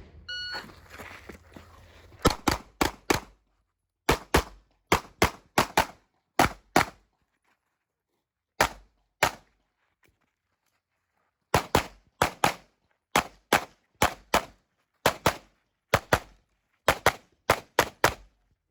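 A shot timer beeps briefly about half a second in. About two seconds later a CZ Shadow 2 pistol starts firing in fast strings, mostly quick pairs, with pauses of one to two seconds between groups. This is a USPSA stage run in which the shooter engages target after target, reloading and moving in between.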